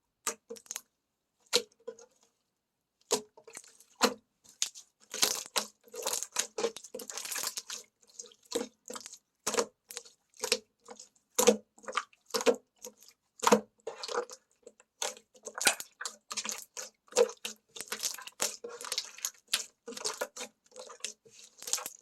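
Slime being pressed and squished by hand, giving sharp popping clicks and crackles. They are sparse for the first few seconds, then come quickly and almost continuously.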